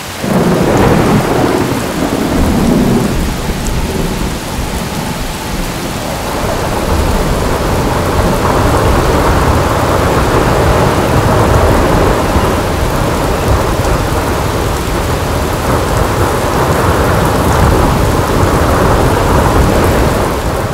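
Heavy rain with rumbling thunder: a loud, steady downpour that starts suddenly.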